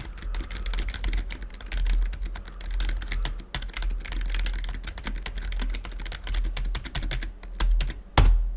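Rapid typing on an Apex 3 computer keyboard, a dense run of key clicks, picked up by a Razer Seiren Mini USB microphone set in front of the keyboard. There is one louder thump near the end.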